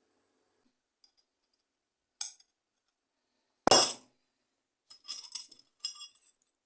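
Hard objects clinking as they are handled and set down: a single clink about two seconds in, one loud knock near the middle, then a quick run of lighter clinks.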